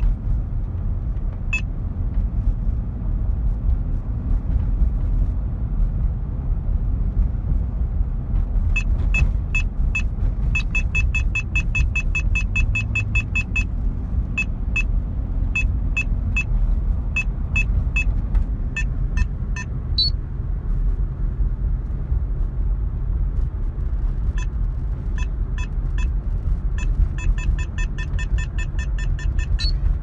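Steady engine and road rumble inside a moving car, with a dashboard police detector sounding its alert: short high beeps, a single one early, then strings of beeps from about nine seconds in that come in rapid runs, stop for a few seconds and start again near the end. The alert signals that a police car has been detected.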